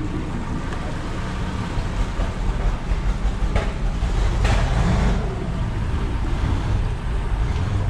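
Motorboat engine idling steadily, with a brief swell in level about four to five seconds in and a couple of short knocks.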